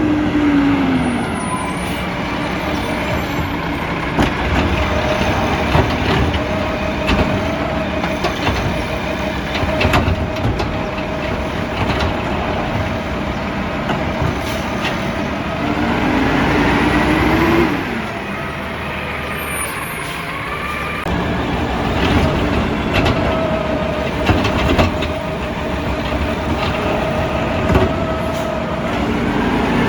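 Peterbilt 320 garbage truck with a McNeilus ZR rear-loader body working: the engine revs up and back down several times, and a steady whine holds for several seconds twice, with scattered knocks and clanks throughout.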